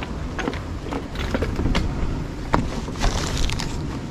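Wind rumbling on the camera microphone, with a plastic bag crinkling close by and scattered sharp clicks as it is carried up the rock. A denser burst of crackling comes about three seconds in.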